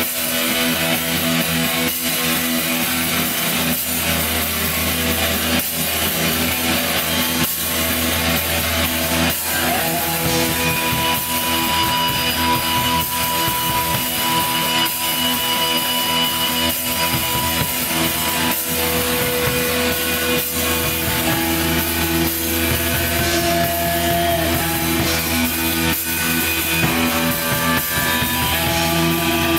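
Black metal band playing live: distorted electric guitars hold long sustained notes over a drum kit, loud and dense.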